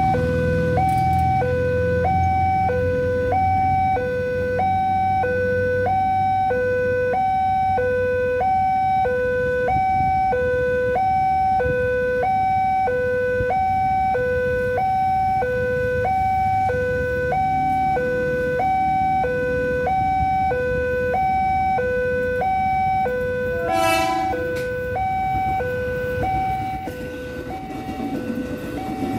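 Railway level-crossing warning alarm: an electronic two-tone signal alternating low and high about once a second, sounding because a train is approaching. A short horn toot comes about 24 seconds in, and the rumble of an electric commuter train rises near the end.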